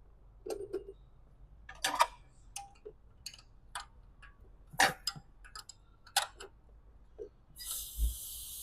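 Scattered, irregular clicks and knocks of hand tools working on engine parts, with a brief hiss near the end.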